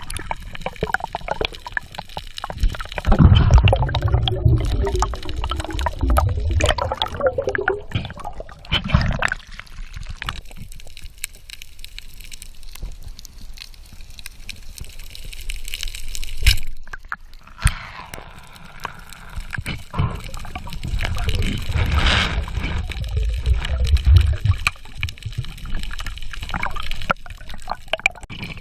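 Underwater sound of water moving and gurgling around a diver's camera, swelling and easing in low rumbles, with a couple of sharp knocks past the midpoint.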